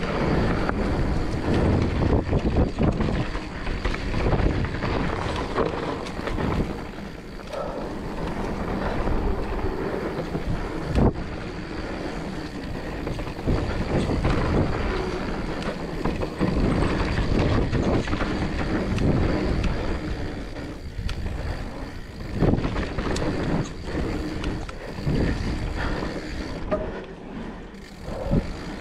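Mountain bike riding fast down a dirt trail: wind buffeting the camera microphone over the rolling noise of the tyres on dirt and leaves, with the bike rattling and knocking over bumps and one sharp knock about eleven seconds in.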